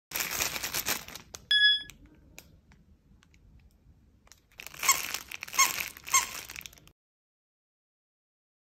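A crinkle dog toy shaped like a potato chip bag, in clear plastic packaging, being handled and squeezed: plastic crinkling and rustling, with a short squeak about one and a half seconds in. A second bout of crinkling follows about five seconds in, with three short squeaks.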